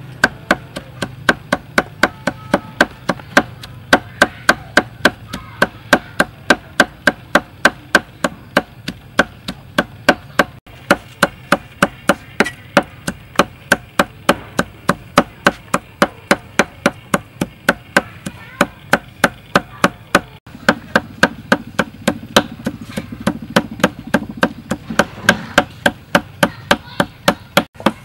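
Cleaver chopping red chilies on a chopping board: steady, rapid blade strikes on the board, about three a second.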